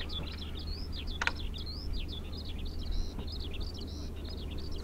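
Bird song: a fast, continuous stream of high chirps and trills over a low steady hum, with one sharp click about a second in.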